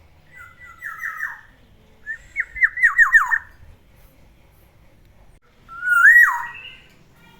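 Black-naped oriole singing. It gives two quick runs of five or six down-slurred whistled notes, then near the end one loud fluty whistle that rises and then drops.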